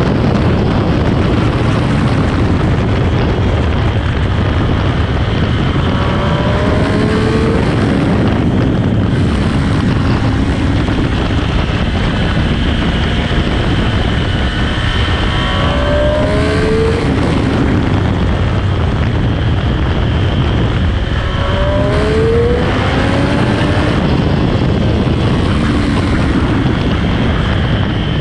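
Sport motorcycle engine on a stock exhaust, pulling hard at speed: its pitch climbs and drops about three times as it accelerates and shifts, under a heavy rush of wind.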